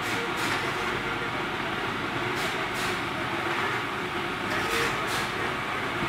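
Fired package-type steam boiler and its plant running with a steady mechanical noise, with short hissing swishes coming in pairs three times.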